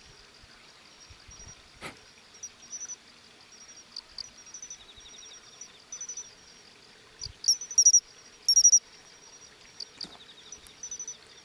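Japanese pine crickets (matsumushi) calling: short, high "chin-chiro-rin" chirp groups recurring every second or two, loudest in a run of chirps about eight seconds in. A fainter, lower trill runs beneath them.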